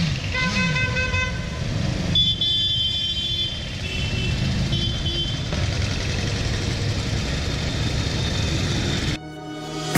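A stream of motorcycles riding past, engines running steadily, with horns honking several times in the first half, including one long toot. The sound drops away suddenly near the end.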